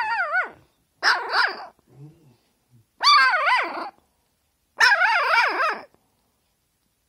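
A small puppy barking in high, thin yips, four calls about a second each, every one wavering up and down in pitch. The puppy is barking on its owner's command to 'speak' and show how fierce it is.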